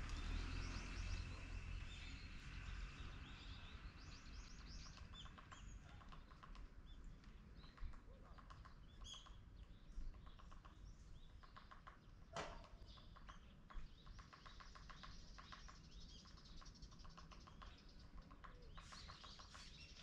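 Small birds chirping and twittering in quick, short repeated calls. A low rumble fades out over the first couple of seconds, and there is a single sharp click about twelve seconds in.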